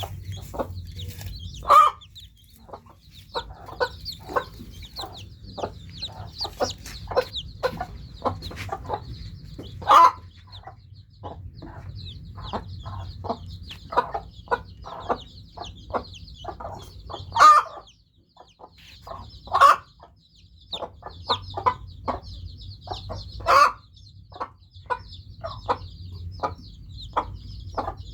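Newly hatched chicks peeping constantly in quick, high, overlapping peeps. A few louder, lower clucking calls stand out every few seconds, over a steady low hum.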